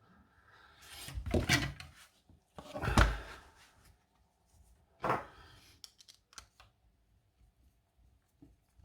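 Handling noise: three rubbing, scraping sounds of hard objects being moved about, the second the loudest, followed by a few small clicks.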